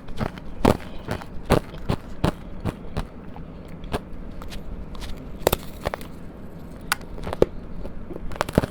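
Close-up crunching of powdery ice coated in matcha powder as it is chewed, a crisp crunch about every second at first, thinning out in the middle, then a few louder crunches in the second half.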